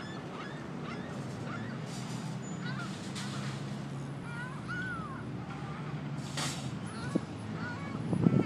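Geese calling in short, scattered honks during a squabble, with a few brief harsh rushes of noise between the calls and a steady low hum underneath. A louder low burst comes near the end.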